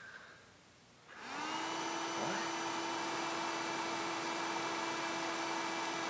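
Dyson handheld vacuum cleaner switching on about a second in, its motor spinning up quickly to a steady whine over a rush of air.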